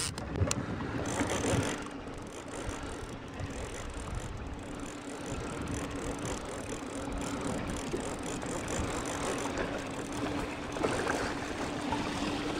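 A boat's outboard motor running with a steady hum, under wind and water noise, while a line-counter reel is cranked to bring in a hooked walleye.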